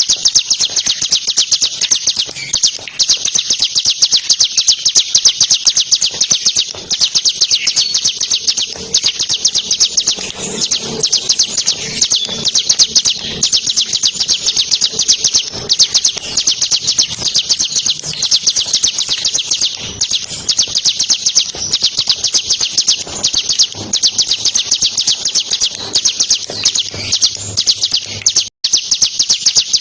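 Bar-winged prinia (ciblek) singing an unbroken, fast run of high chirps, many notes a second, in the rapid 'ngebren' style. There is a brief complete break near the end.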